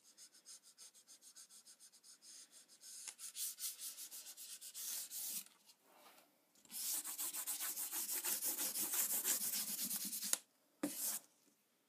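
Pencil scratching across smooth printer paper in quick, rhythmic back-and-forth shading strokes. The strokes grow louder partway through, pause briefly, and run densest for a few seconds before stopping, with one short last burst near the end.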